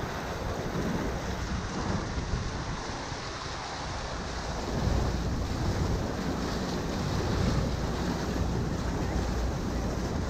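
Wind buffeting the microphone over the rush and splash of river water around a moving raft, growing a little louder about halfway through.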